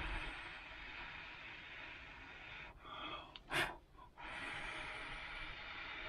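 A man blowing long, steady breaths into a small wood-chip fire in a stainless steel vegetable-steamer firebox to liven it, the air rushing through the burning chips. About three and a half seconds in there is a quick sharp breath in between two blows.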